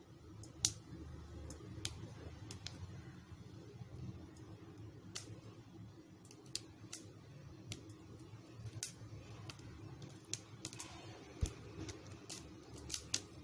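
Mustard seeds and dried red chillies spluttering in hot oil in a kadai during tempering: scattered sharp pops, few at first and coming more often toward the end.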